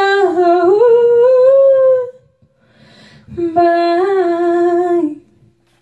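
A woman's unaccompanied voice singing wordless held notes, hummed or on an open vowel. One phrase climbs to a higher sustained note, then a short breath, then a second held phrase that ends about five seconds in.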